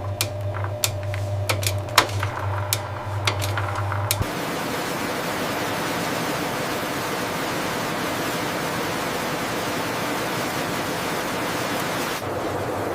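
Processing-line machinery: a steady low hum with irregular clicks and clatter, then a sudden change, about four seconds in, to a steady, even rushing noise.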